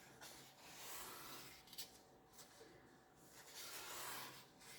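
Faint rustle of paper pages being handled and turned, two soft swishes about a second in and near the end.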